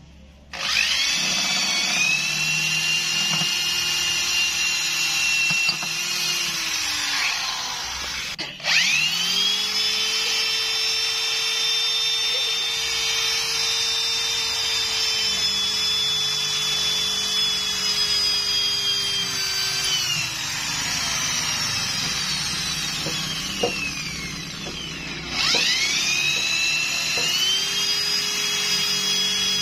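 Electric drill motor whining: it spins up with a rising whine, slows and restarts about eight seconds in, runs a long stretch with its pitch sagging slightly, then winds down gradually and spins up again near the end.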